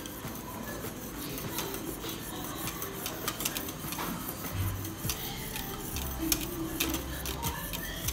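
A wire whisk stirring liquid in a stainless steel pot, with repeated clinks and scrapes against the metal.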